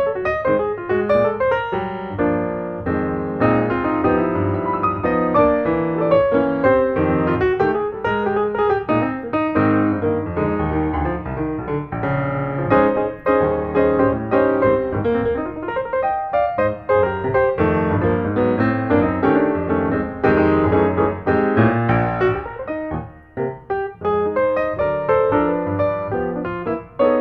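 Background music played on piano: a steady run of notes and chords.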